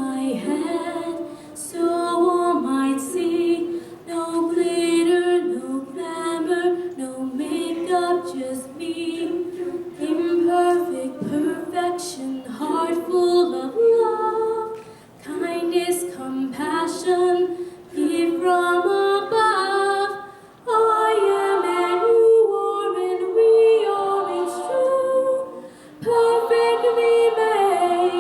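Show choir singing in harmony, a mix of voices carrying several parts at once, in phrases with short breaths between them.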